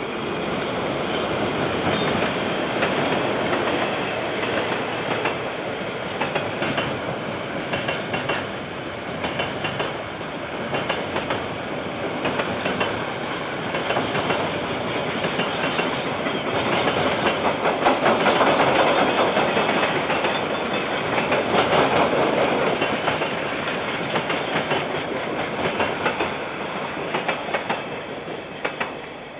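A KiwiRail freight train passing: a diesel locomotive followed by a long rake of container wagons, with steady rumble and irregular clacking of wheels over the rail joints. The sound fades away near the end as the last wagons pass. It is heard through a security camera's microphone, which dulls the high end.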